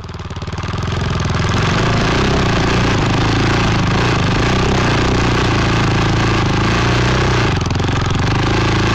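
Prototype inline three-wheel motorcycle's engine running steadily under way, heard close up from a camera mounted low by the wheels. The sound rises over the first second, then holds.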